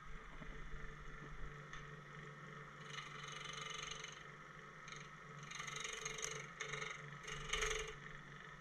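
Wood lathe running steadily at about 1400 rpm with a segmented pear-wood vase spinning on it. From about three seconds in, a gouge brought to the wood adds brief, light hissing scrapes.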